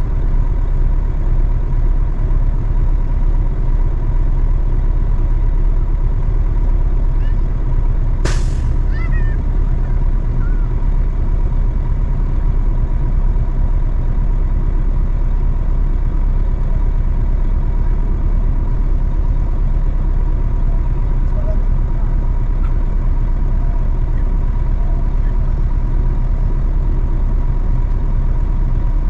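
Heavy truck's engine running steadily as it pulls a trailer, a continuous low rumble. One sharp hiss or crack cuts in briefly about eight seconds in.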